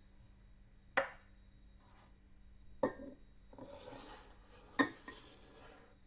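Three light clinks of kitchenware being handled, roughly two seconds apart, with a faint hiss between the second and third.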